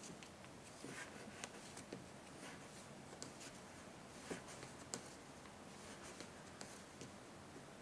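Faint, scattered clicks and soft rustling of wooden knitting needles and wool yarn as stitches are knitted by hand.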